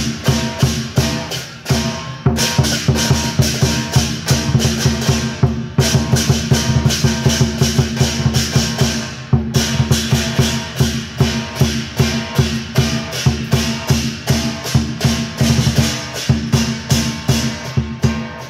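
Lion dance percussion ensemble playing: a large Chinese barrel drum beaten in a fast, driving rhythm with clashing hand cymbals and a ringing gong.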